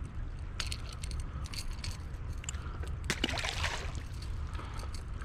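A short splash in the water about three seconds in, over a steady low rumble, with scattered light clicks.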